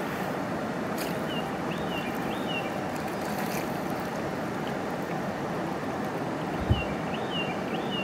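Steady rushing of river water from nearby rapids, with a few short high chirps twice and a single low thump about two-thirds of the way through.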